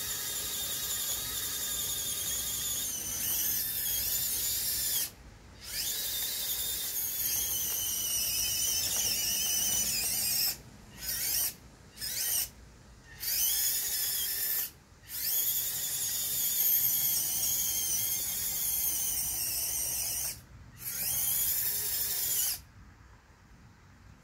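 Small electric gear motors of a radio-controlled Bruder toy mini excavator whining at high pitch, the pitch wavering with motor speed as the tracks and arm are driven. The whine stops and starts again about six times and goes quiet a couple of seconds before the end.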